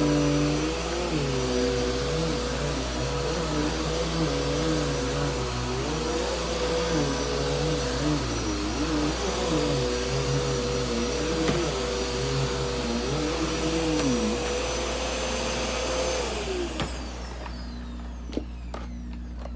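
Bissell PowerForce Helix upright vacuum running on carpet, its motor tone wavering up and down. About sixteen seconds in it is switched off and winds down, followed by a few clicks.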